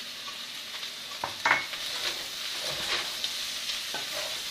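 Metal spoon stirring and scraping potatoes and cauliflower in a stainless steel pan, over a steady light sizzle from the cooking vegetables. There are several short scrapes, the loudest about a second and a half in.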